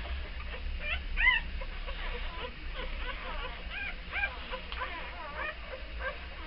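Week-old beagle puppies squeaking and whimpering as they nurse: many short, high squeaks that rise and fall, several a second, the loudest about a second in.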